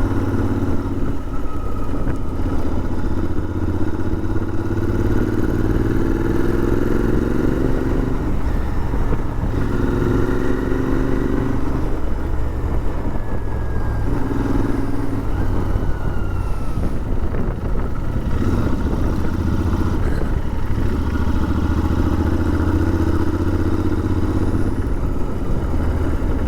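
Royal Enfield Interceptor 650's parallel-twin engine running under way, its pitch rising several times as the bike accelerates, over a steady low rumble.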